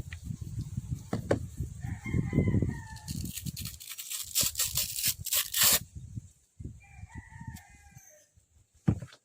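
A rooster crows twice, each crow lasting about a second, one about two seconds in and one about seven seconds in. Irregular low rumbling noise and some clicks run under the first half.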